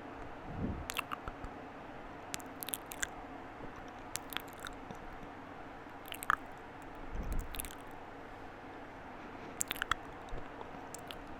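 ASMR mouth sounds close to the microphone: scattered wet clicks and pops of the lips and tongue, with a couple of soft low puffs of breath.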